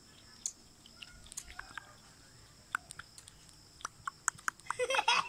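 Small puppies moving about on gritty dirt: sparse light clicks and scuffs, then near the end a short burst of high-pitched whining.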